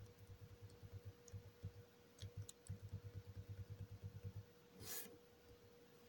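Faint computer keyboard keystrokes: a rapid run of soft taps for about four seconds while the text is being edited, over a steady faint hum.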